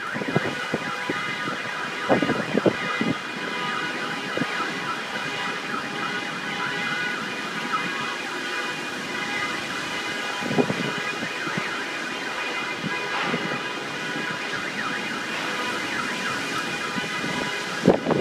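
Several car alarms sounding at once, their repeating electronic tones overlapping, with wind noise behind them.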